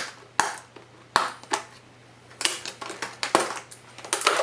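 Cardboard retail box being opened by hand: a string of sharp clicks and short rustling scrapes of the packaging, with a brief lull in the middle.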